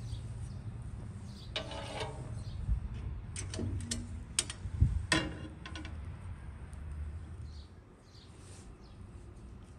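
Split firewood sticks knocking and clattering as they are picked up and handled, with a cluster of sharp knocks between about one and a half and five and a half seconds in, over a low steady rumble.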